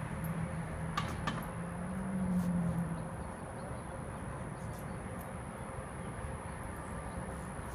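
Low drone of a passing vehicle's engine that swells and then fades out about three seconds in, over steady outdoor background noise, with two sharp clicks about a second in.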